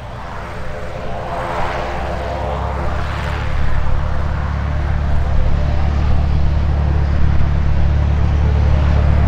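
Reims Cessna F172M Skyhawk's four-cylinder piston engine and propeller running at taxi power, growing steadily louder as the plane taxis toward the microphone.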